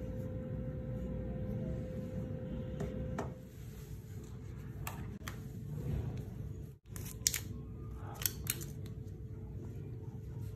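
Handling noise from a plastic phone charger and its USB cable being turned over and unwound in gloved hands. A steady low rumble runs under it, and a few sharp clicks come in the second half, the loudest in two quick groups near the end.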